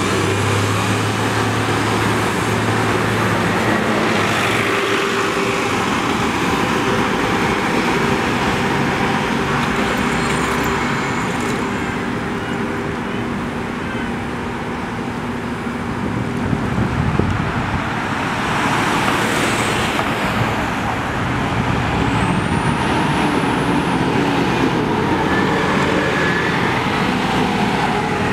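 City transit buses running and pulling away amid steady street traffic. A low engine drone is strongest at the start and fades after a few seconds. Near the end comes a brief high whine that rises and falls.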